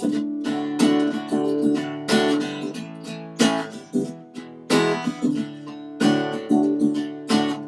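Acoustic guitar strummed in a steady rhythm, with each chord ringing on between strokes; the guitar is played alone, without singing.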